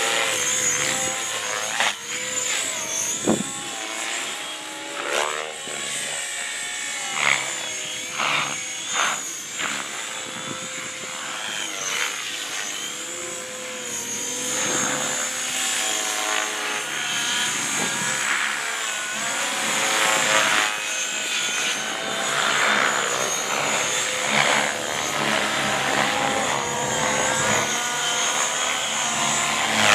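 GAUI X3 electric radio-controlled helicopter flying aerobatics: a high motor and gear whine with the whoosh of the rotor blades, rising and falling in pitch and loudness as it flips and passes.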